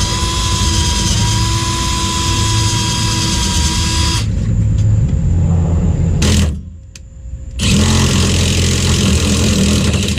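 Electric drill running under load, boring a new bolt hole into the truck frame. It runs steadily with a whine, stops abruptly about six and a half seconds in, starts again about a second later and stops again at the end.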